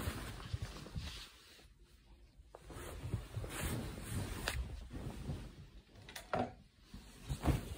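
Rustling and handling noises with a few short knocks, the loudest near the end.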